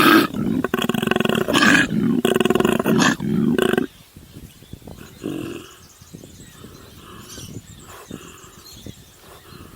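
Koala bellowing: a run of loud, low, pulsing snore-and-belch calls, the mating call typical of male koalas. It stops suddenly about four seconds in, leaving only faint scattered rustles.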